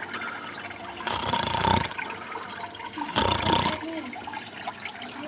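Water gurgling in surges in a tilapia tank, twice, about two seconds apart. The sound is offered as the tilapia 'snoring' in its sleep.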